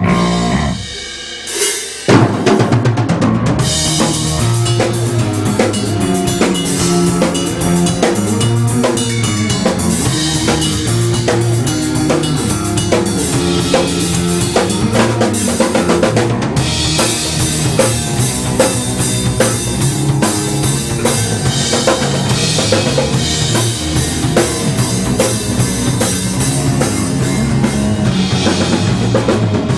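Rock band playing, with a full drum kit (bass drum, snare and cymbals) over a bass line. The music drops back briefly in the first two seconds, then the whole band comes back in hard.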